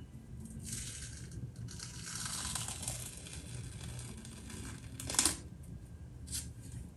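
Black peel-off face mask being pulled off the skin: a crackly tearing in several pulls, the longest about two seconds in, with a short sharp rip about five seconds in that is the loudest.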